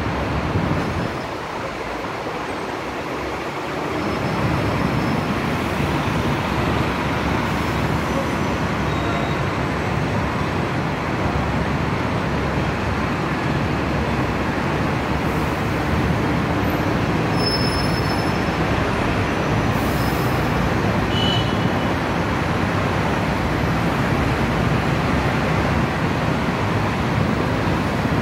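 Steady roar of heavy city street traffic heard from above: double-decker buses, trams and cars running below, slightly softer for the first few seconds.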